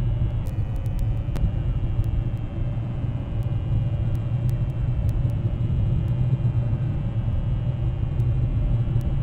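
Steady low outdoor rumble on the webcam's microphone, with a few faint clicks in the first second and a half and scattered ones after.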